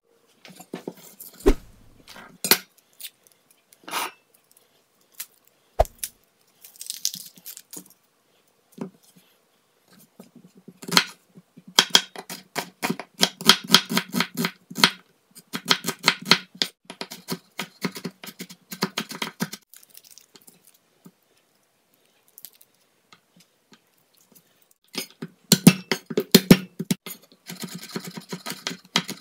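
Chef's knife chopping onion and then garlic on a wooden cutting board: quick runs of sharp knocks of the blade on the board. The first ten seconds have only a few scattered knocks; long fast runs come in the middle and again near the end.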